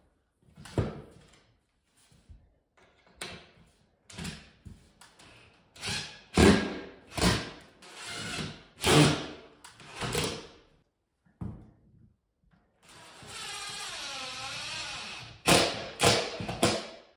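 A series of knocks and scrapes as a drywall panel is handled and pried at, with a cordless drill running for about two seconds, its speed wavering, followed by a few more sharp knocks near the end.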